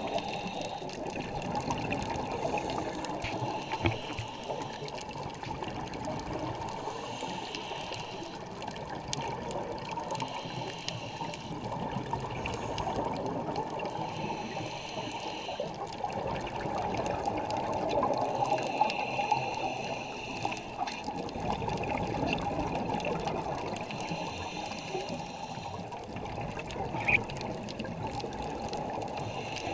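Scuba divers breathing underwater through their regulators: a steady bubbling wash of exhaled air, with a hissing breath coming every few seconds.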